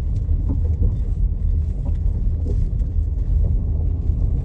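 Car rolling slowly along a gravel drive, heard from inside the cabin: a steady low rumble of tyres and engine, with faint scattered ticks.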